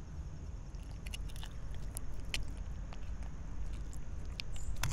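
Knife cutting and prying through the bony collar of a tautog, with scattered crunches and clicks as the blade works through bone and cartilage, over a low steady rumble.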